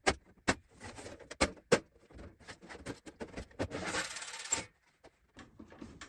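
Clicks, clinks and knocks from handling the casing of an all-in-one diesel heater as its cover is taken off, with a brief scraping rush about four seconds in.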